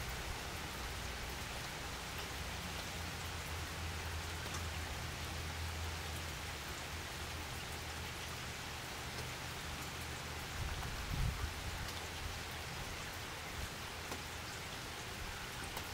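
Steady rain falling on a wet wooden deck, an even hiss of drops, with a low rumble underneath and a few low bumps about two thirds of the way through.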